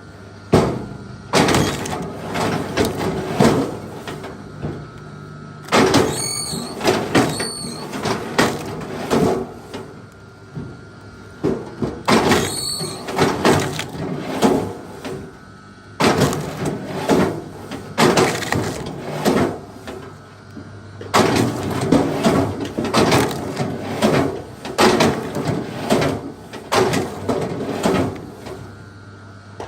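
Wood being worked by hand: an irregular run of knocks and cracks, at times one or two a second, with short high creaks about six and twelve seconds in.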